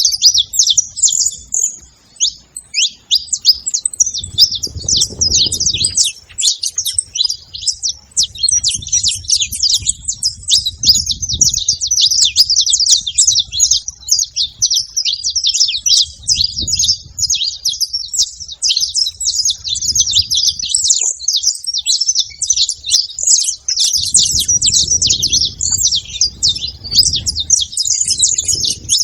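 Several saffron finches chirping and singing together in a dense, continuous chatter of short high notes, thinning briefly about two seconds in.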